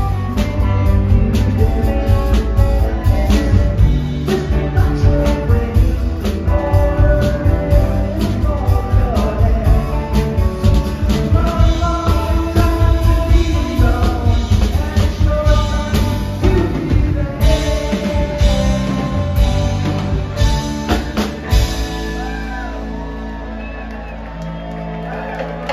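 Live rock band with electric guitars, bass, drums and saxophone playing, with singing; a little over 21 seconds in the drums stop and a final held chord rings out and slowly fades.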